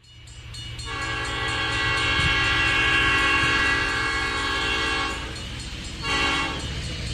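Train horn blowing a chord of several tones: one long blast that swells in over the first second and holds for about five seconds, then a short blast about six seconds in, over a low steady rumble from the train.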